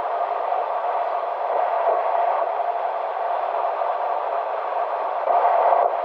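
Steady road and tyre noise heard from inside a car cruising on an expressway, getting louder a little before the end.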